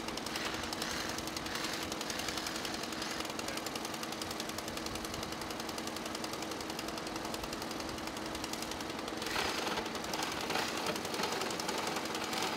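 A motor running steadily nearby, a fast even mechanical rattle with a faint steady hum beneath it.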